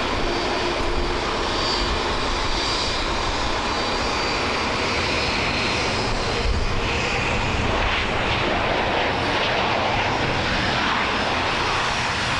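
Boeing 737 jet engines during its landing: a steady jet roar, with a thin high whine in the first few seconds.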